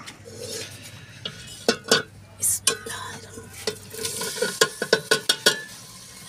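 A knife scrapes and taps chopped tomato, onion and green garlic off a plate into a hot metal pot for a tadka, a string of sharp metal clinks on the plate and pot rim, with the vegetables sizzling as they hit the hot oil.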